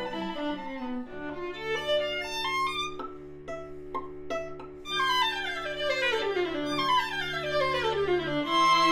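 String quartet of two violins, viola and cello playing: held low notes under a climbing violin line, a quieter stretch of short detached notes about midway, then several voices sweeping down together in falling scales.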